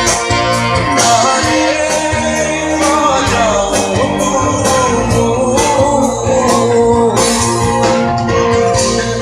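Live band music with a singing voice over regular, driving percussion hits.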